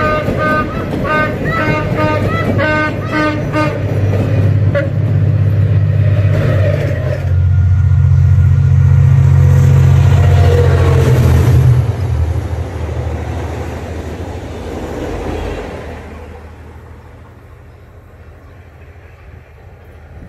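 Henschel diesel locomotive passing close at speed. Its engine drone swells to a loud peak about halfway through, drops in pitch as it goes by, and fades as the train pulls away. The first few seconds hold a run of short, high toots.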